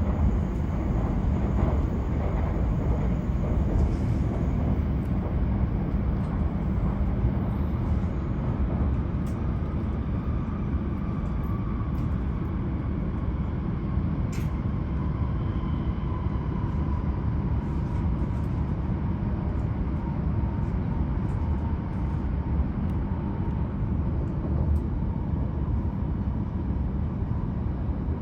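Tohoku Shinkansen running noise heard inside the passenger cabin: a steady rumble of wheels on rail. Through the second half a faint whine slowly falls in pitch as the train slows for its arrival at Sendai.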